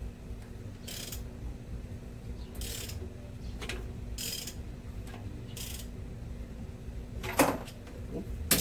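Ratchet wrench turning a car engine's crankshaft over by hand, with a short ratcheting sound on each stroke about every second and a half, then two sharp metallic clicks near the end. The engine is stiff to turn because of its valve springs, not compression.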